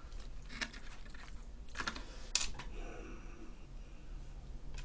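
A few faint, scattered clicks and taps, spaced irregularly.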